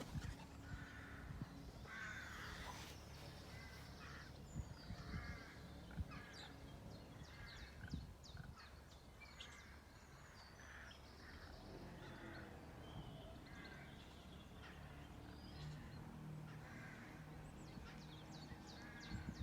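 Faint mixed birdsong: several birds chirping and trilling in quick strokes, with repeated short harsher calls, over a faint low steady hum.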